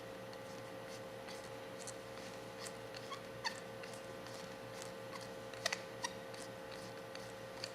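Small, sharp clicks and ticks of metal gas-lighter parts being handled as a replacement valve part with a new seal is screwed into the lighter body, the loudest pair of clicks a little past halfway, over a steady low background hum.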